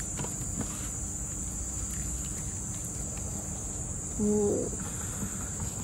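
Steady high-pitched drone of insects, with a brief low hum-like call just past four seconds in.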